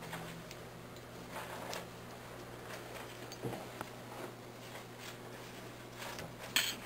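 Faint rustling and scratching of fingers handling the dubbing, thread and materials of a fly clamped in a tying vise, with a sharp click near the end.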